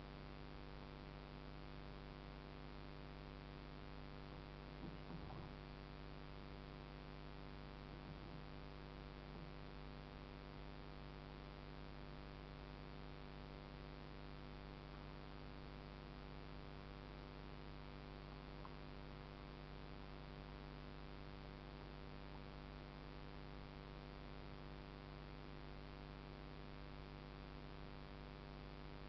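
Steady, faint electrical hum with hiss, the recording's own noise. A brief faint sound comes about five seconds in.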